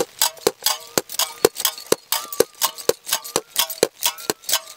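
Metal climbing hardware knocked against a metal fuel bottle in a steady rhythm, about four to five sharp clinks a second, each ringing briefly.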